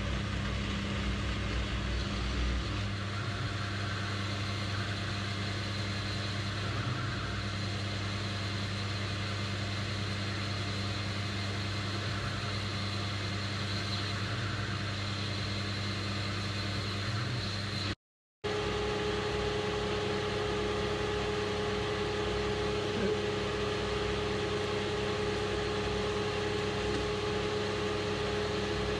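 Metal lathe running under cut, turning a steel spindle: a steady motor and drive hum with the sound of the tool cutting. The sound cuts out for a moment about 18 seconds in, then resumes with a steadier, higher whine.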